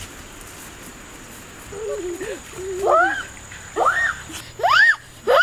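Steady rushing noise, then from about two seconds in wavering calls, followed by a run of loud cries that each rise and fall in pitch, about one a second.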